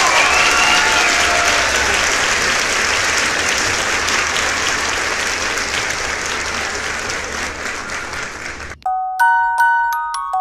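Applause from a recorded crowd, with a few rising whistle-like tones near the start, slowly fading. About nine seconds in it cuts off abruptly and a bright glockenspiel jingle of separate struck notes begins.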